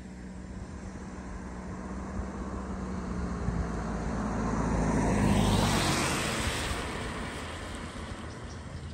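A vehicle passing by: a low engine hum grows louder, peaks about five and a half seconds in, then fades away.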